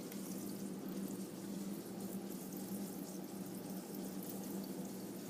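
Water running steadily from a Whirlpool refrigerator's door dispenser into a jug, with a constant low hum: flushing a newly installed water filter.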